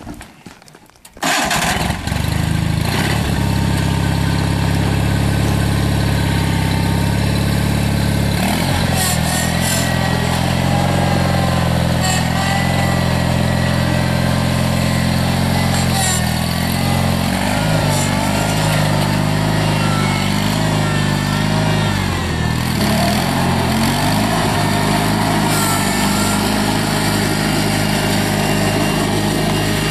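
1987 John Deere 318 garden tractor's Onan two-cylinder engine starting about a second in, catching at once, then running steadily as the tractor is driven, its pitch shifting a few times.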